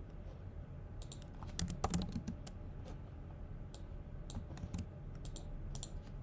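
Computer keyboard typing: irregular, sharp key clicks starting about a second in and running on until near the end, over a low steady hum.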